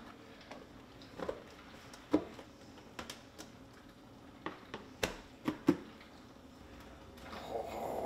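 Light handling sounds in a kitchen: scattered clicks and knocks, the sharpest three about five to six seconds in, with a soft rustle near the end.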